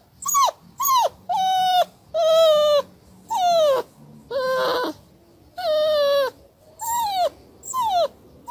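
A dog whining in a run of about nine short cries, roughly one a second, each falling in pitch.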